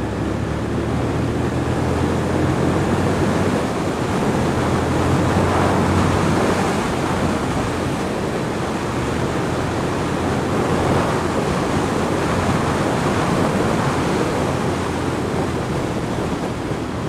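Steady wind rush on a helmet-mounted camera at road speed on a Honda VTR1000 Firestorm, with the bike's V-twin engine as a low, even drone underneath.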